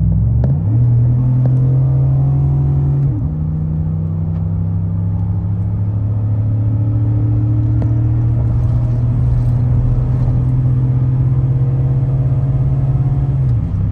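Vehicle engine running at a steady pitch, dipping briefly about three seconds in and again near the end.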